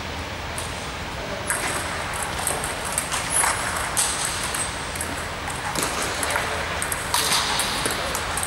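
Table tennis ball clicking as it is struck by the paddles and bounces on the table during a rally: a quick, irregular series of light, sharp ticks.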